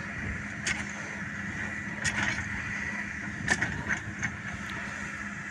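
Excavator diesel engine running steadily, with a few sharp clicks or knocks over it.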